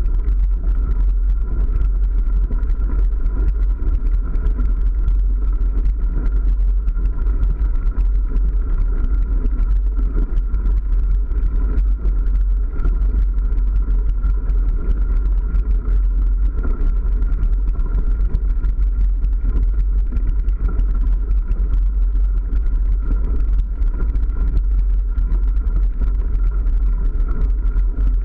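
Mountain bike rolling along a gravel forest track, heard from a ride-mounted camera: a steady low rumble of tyres on gravel and wind on the microphone, with a faint steady hum above it.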